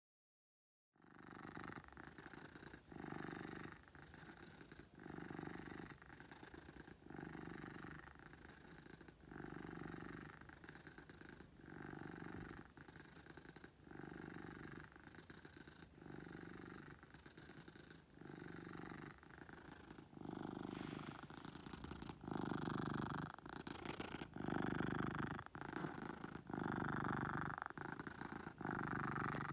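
Domestic tuxedo cat purring loudly, starting about a second in, in a steady rhythm of swells about every two seconds as it breathes in and out, growing louder over the last third.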